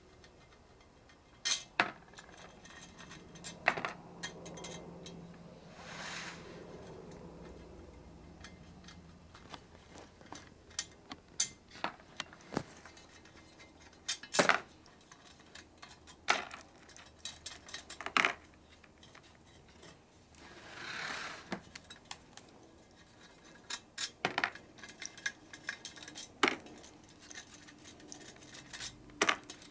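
Stainless steel wheel spokes clinking and rattling against the hub and rim as they are worked loose from a binding star hub. Sharp metallic clinks come at irregular intervals, every second or two.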